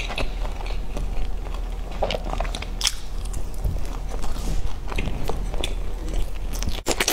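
Close-up mouth sounds of a person biting and chewing a soft-filled pastry topped with pork floss: irregular small clicks and wet chewing noises over a low steady hum.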